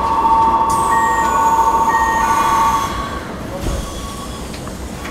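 A steady two-tone electronic door-closing signal sounds over short higher beeps and stops about three seconds in. The train's doors then slide shut with a soft thump.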